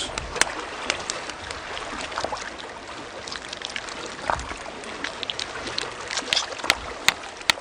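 Shallow seawater trickling and lapping, a steady hiss of water, with scattered short sharp clicks and taps that come more often near the end.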